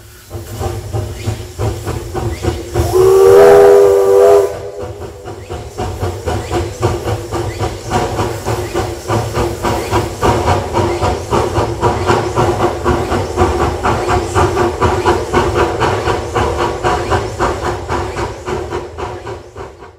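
Hudswell Clarke narrow-gauge steam locomotive sounding its whistle once, for about a second and a half, a few seconds in. Throughout, it works along with steady, regular exhaust beats and a hiss of steam.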